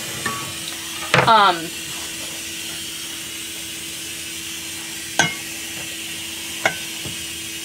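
Ketchup being poured and scraped from a plastic container into a stainless steel saucepan with a spatula: a few light taps over a steady low hum. A short voice sound comes about a second in.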